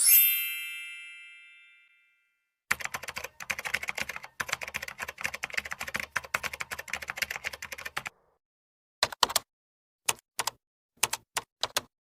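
A bright bell-like ding that rings out and fades over about two seconds. It is followed by a fast run of keyboard typing clicks lasting about five seconds, then a few separate key clicks near the end.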